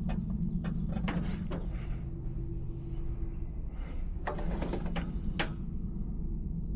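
Several sharp knocks and clatters of tools and parts being handled, over a steady low rumble.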